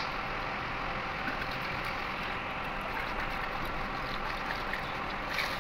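Steady rushing machinery noise, even and unbroken, with no distinct knocks or events.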